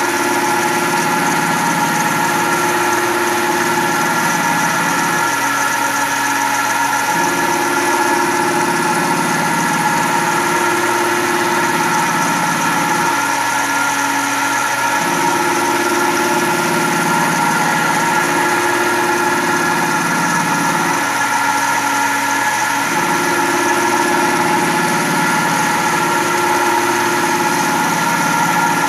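Fanuc Tape Center Model D CNC mill running with an end mill cutting steel, its spindle giving a steady whine. Under it, a lower cutting sound swells and fades in a repeating cycle about every eight seconds, with a short lull each time, as the cutter works around the circular pass.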